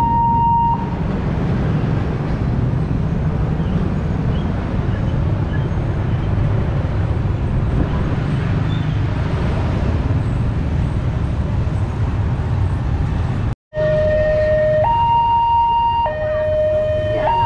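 Railway level-crossing alarm, the Daop 8 Surabaya style, sounding two steady notes, low and high, each held about a second in turn. It stops about a second in, leaving a steady low rumbling noise. Near the end, after a brief break, the alternating alarm starts again.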